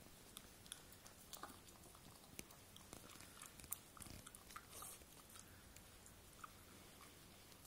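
A dog (pug–Jack Russell cross) chewing and mouthing a rubber Kong Bone toy to get at the treats stuffed inside: faint, irregular small clicks and crunches.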